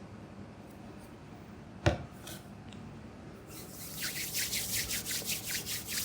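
A single sharp click about two seconds in, then hands rubbing briskly in quick even strokes, about four a second, through the last two and a half seconds, as in a massage.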